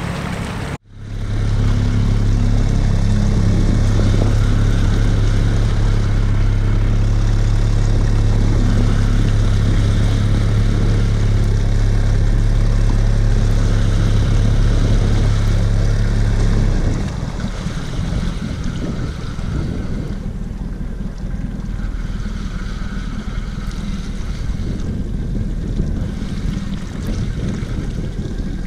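A motor runs steadily with a deep, even hum, then stops about two-thirds of the way through, leaving wind noise on the microphone.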